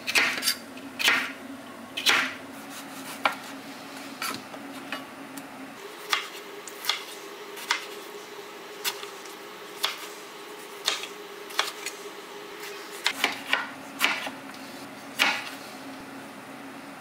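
Chef's knife cutting red bell pepper and tomato on a wooden cutting board: sharp, irregular taps of the blade on the board, roughly one a second.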